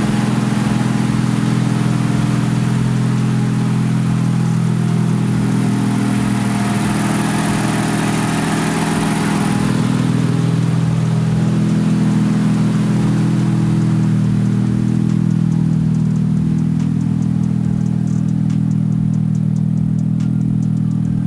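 Nissan Z's twin-turbo 3.0-litre V6 running steadily at a constant pitch, with a brief swell of hiss about seven to ten seconds in.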